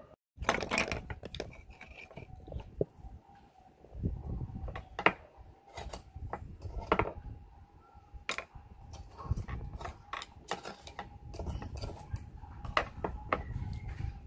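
Raw oyster shells clicking, knocking and scraping against a steel bowl and a shucking knife as the oysters are pried open: a string of sharp, irregular clicks over a low rumble.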